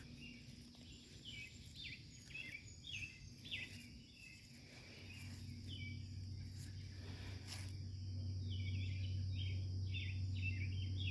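Birds chirping in short, repeated calls over a steady high-pitched insect drone, with a low steady hum coming in about halfway.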